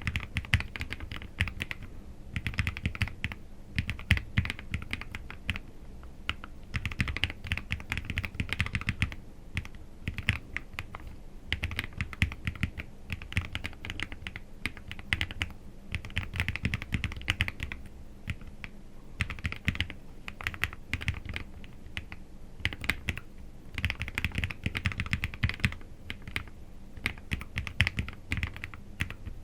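Typing on a Lofree Flow 84 low-profile mechanical keyboard: fast runs of keystroke clicks and clacks, separated by brief pauses.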